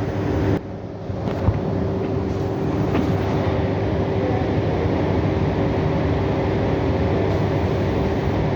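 Steady mechanical drone with a constant hum, dropping out briefly about half a second in and then running on evenly.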